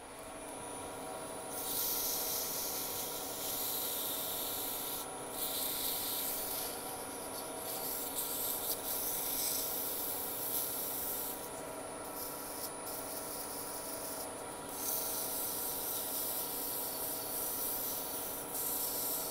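Abrasive paper held against a kingwood pen blank spinning on a woodturning lathe: a hiss that comes and goes in passes, breaking off briefly several times, over the lathe motor's steady whine.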